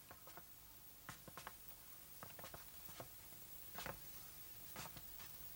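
Near silence with faint, irregularly spaced clicks and taps.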